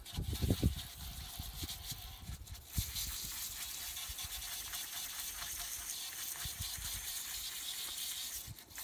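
Hand-pump pressure sprayer spraying water onto a stainless steel bellows weld, rinsing off the pickling acid. A few low knocks come first, then a steady hiss from about three seconds in.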